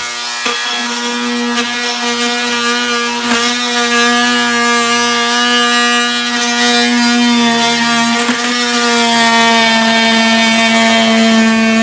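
Dremel rotary tool running at high speed with a steady whine, trimming the edge of a plywood patch, with a few faint clicks as the cutter touches the wood.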